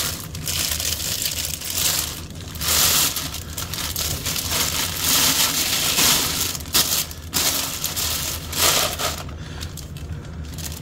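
Plastic wrapping crinkling and rustling in repeated surges as a bass guitar is pulled out of its bag and box, with packing paper rustling along with it.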